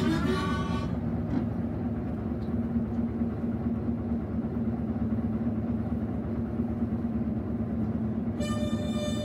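A boat's engine running with a steady low drone and a constant hum. A harmonica note trails off about a second in, and the harmonica starts playing again near the end.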